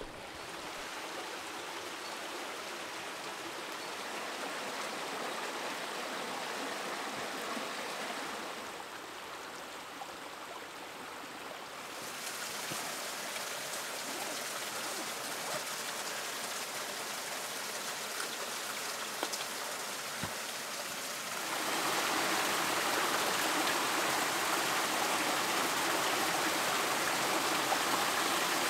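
Steady rush of a rain-swollen woodland stream running over rocks. The water noise shifts level a couple of times and grows louder about 21 seconds in.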